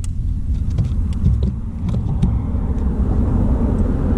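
A steady low rumble, with scattered light clicks and taps through it.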